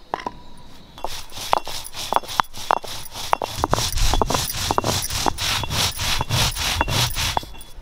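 Rhythmic scraping or sawing strokes, about three a second, starting about a second in.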